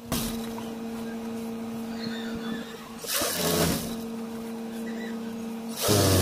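Juki industrial sewing machine: the motor hums steadily, and twice, about three seconds in and again at the end, the pedal is pressed for a short, louder run of stitching along the blanket's hem.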